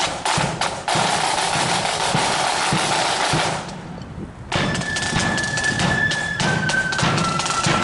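Marching flute band: a snare drum roll for about three and a half seconds, a short lull, then flutes holding long notes that step down in pitch twice over steady drum beats.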